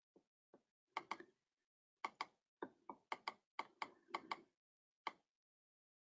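Faint, sharp clicks from someone working at a computer, mostly in quick pairs, about a dozen of them between one and five seconds in.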